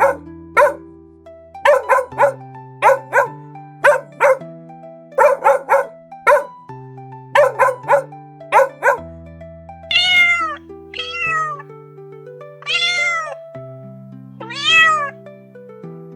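A cat meowing four times in the second half, each meow long and falling in pitch, after a run of short, sharp animal calls in quick pairs. Background music with held notes plays under it throughout.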